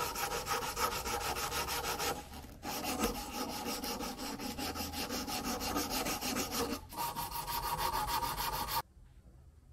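A strip of 120-grit sandpaper pulled rapidly back and forth around a hand-carved wooden jerkbait body clamped in a vise, smoothing the carved wood: a fast, rhythmic scratching with two brief breaks, stopping suddenly about a second before the end.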